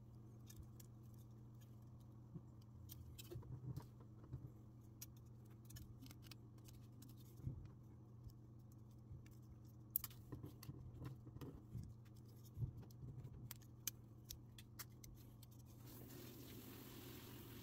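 Light clicks, ticks and small snips of a hard plastic Mini 4WD chassis being handled and trimmed with side cutters, scattered irregularly over a steady low hum.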